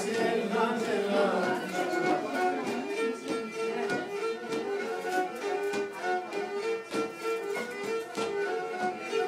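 A bowed string instrument plays a melody live at close range, over regular sharp strokes that keep a beat.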